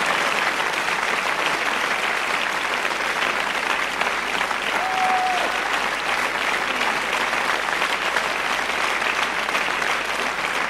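Concert audience applauding steadily, with a short whistle-like tone about five seconds in.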